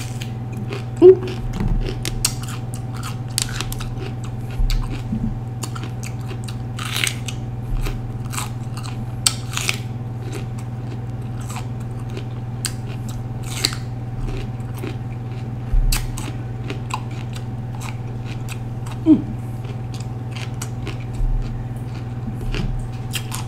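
A person chewing raw green bell pepper close to the microphone: irregular crunches and clicks over a steady low hum.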